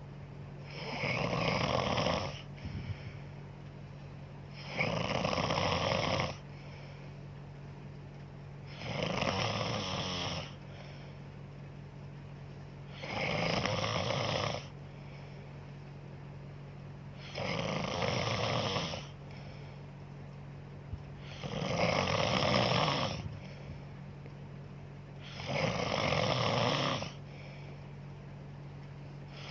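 A sleeping woman snoring steadily: seven loud snores, one about every four seconds, each lasting about a second and a half.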